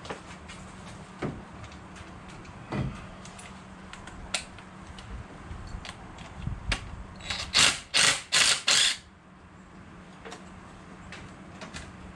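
Hand work on a car's electrical ground connections: scattered knocks and clicks from tools and parts, then about eight seconds in four short, loud, noisy strokes in quick succession, as in cleaning a dirty connection.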